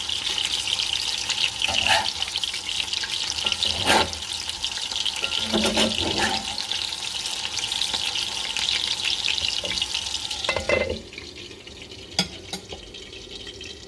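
Herbed chicken patties sizzling and crackling in a fry pan, with a few short knocks along the way. About eleven seconds in, the sizzle drops away sharply to a much quieter hiss.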